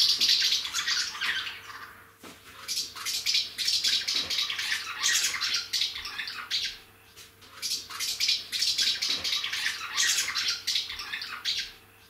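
Swallows twittering and chattering in busy bouts, with brief lulls about two seconds in and about seven seconds in, tailing off near the end.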